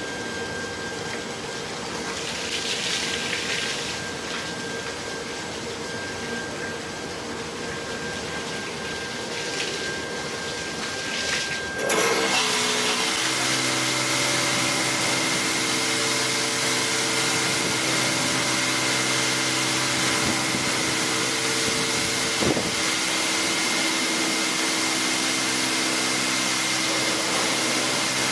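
Touchless automatic car wash machine (LeisuWash) working on a foamed car: a steady hum of the pump and gantry at first, then about twelve seconds in its high-pressure water jets come on, with a louder, steady spraying hiss over the pump's whine.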